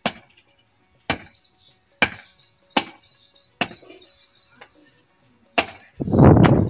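A hatchet chopping into an upright wooden stake, a sharp knock about once a second, with a louder, longer thud near the end. Birds chirp in the background.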